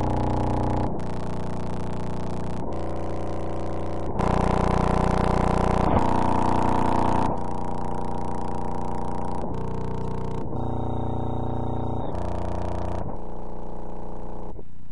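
Steady, buzzing pitched tones that switch abruptly to a new set every second or two. It sounds like garbled, distorted digital audio rather than any sound from the field.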